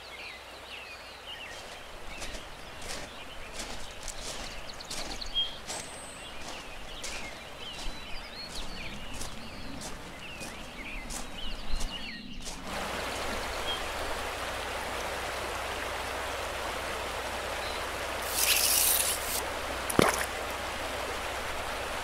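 Outdoor ambience with birds calling and scattered clicks, then an abrupt change about twelve seconds in to a steady rush of flowing river water, with a brief hiss near the end and a single sharp click just after it.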